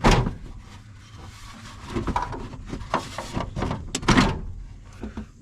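A loud pop as a shift cable fitting is pried off, then scattered clicks and clunks of the freed parts being handled, with another loud knock about four seconds in.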